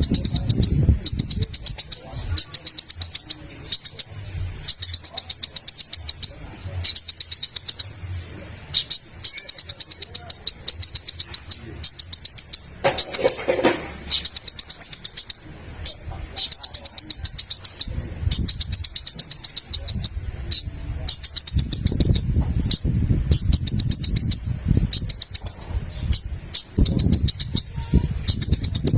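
Little spiderhunter (sogok ontong) singing in long runs of rapid, high-pitched chattering notes, each run lasting a second or two with short breaks between, in the chatty 'gacor' style used to provoke rival birds into calling. A low rumble sits underneath, strongest near the end.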